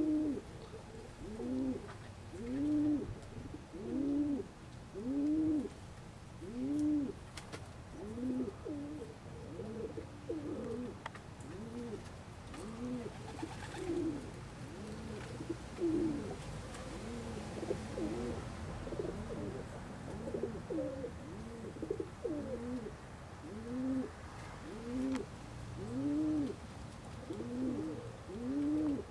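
Domestic pigeons cooing: a steady run of rising-and-falling coos about one a second, with the calls of several birds overlapping through the middle stretch.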